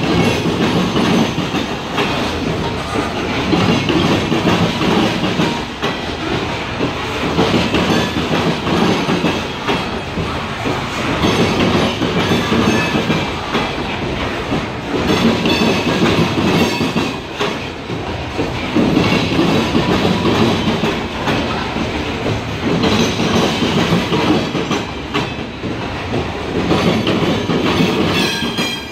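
Open-top coal gondola cars of a slow freight train rolling past. The wheels clack over the rail joints in a rumble that swells and fades about every four seconds, and there is a faint metallic squeal now and then.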